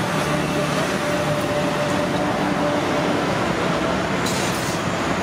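Steady roadside traffic noise: an even rumble and hiss of passing vehicles, with a brief high hiss about four seconds in.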